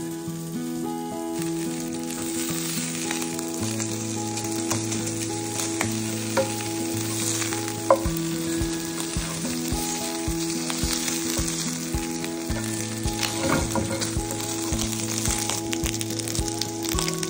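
Salmon skin and diced bacon sizzling as they fry in a pan, stirred now and then with a spatula, with a few small pops and clicks. Soft background music with sustained chords runs underneath.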